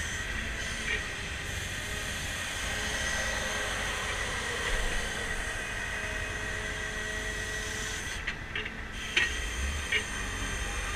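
Rear-mount grapple truck's hydraulic system running with a steady whine and hiss as the boom and grapple are worked, with a few sharp clicks near the end.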